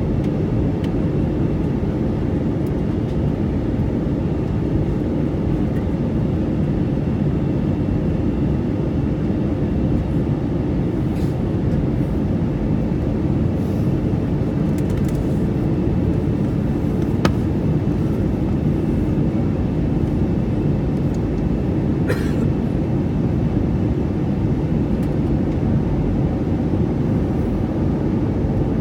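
Jet airliner cabin noise in flight: a steady low rush of engine and airflow noise heard inside the cabin, with a few faint clicks.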